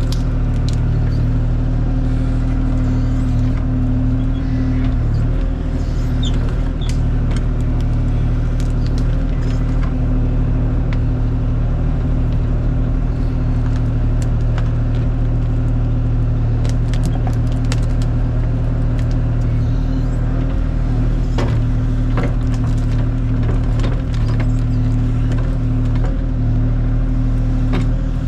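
Kubota KX040 mini excavator's diesel engine running steadily under load, with scattered sharp clicks and knocks.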